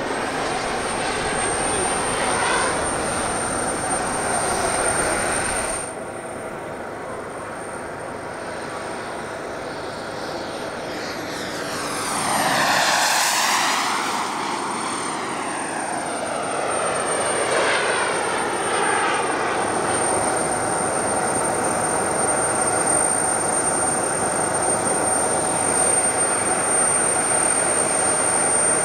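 Four Wren Super Sport micro gas turbines of a large RC Vickers VC10 model jet running in flight, a jet roar under a steady high whistle. The roar swells as the model flies low past about 13 s in, its pitch sweeping down as it goes by.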